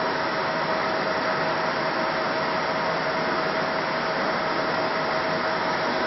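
Cooling fans of a fiber laser marking machine running: a steady hum with a constant mid-pitched whine.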